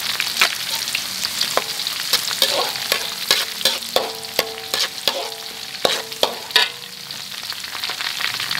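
Garlic and pandan leaves sizzling in hot oil in a metal wok, with a metal spatula scraping and clinking against the pan. Several clinks in the middle leave the wok ringing briefly.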